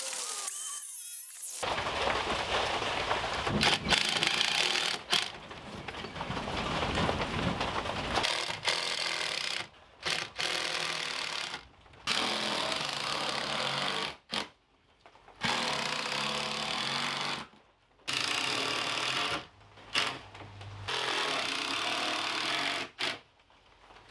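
Power tools at work on wood and siding, in short clips several seconds long that stop and start abruptly.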